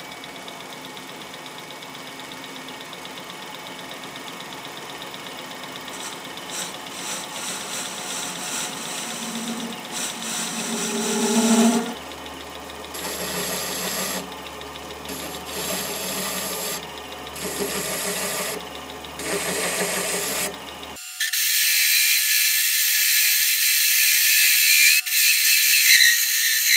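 Atlas 618 bench lathe running as it turns a cast-iron back plate. A hand file is then stroked against the spinning part in repeated strokes of about a second each. About 21 seconds in, the sound changes abruptly to a thinner, higher-pitched clatter.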